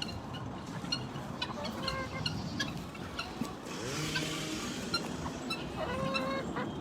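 Chickens and turkeys clucking and calling, with many short sharp calls throughout, a longer call about four seconds in and another near the end, over a steady low rumble.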